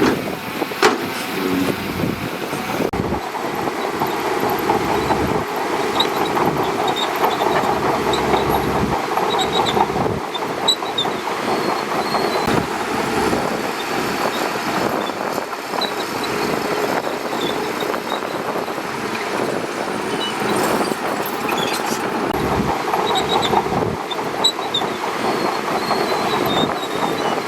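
Shantui DH17C2 bulldozer's diesel engine running steadily under work.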